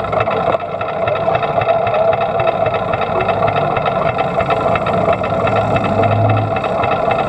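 Quarter midget's small Honda single-cylinder engine running at a steady idle, heard close up from the car.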